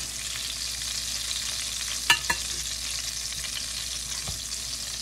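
Flour-battered chicken breasts sizzling in shallow olive oil in a stainless steel pan. About two seconds in come two sharp metallic clinks, a metal fork knocking against the pan.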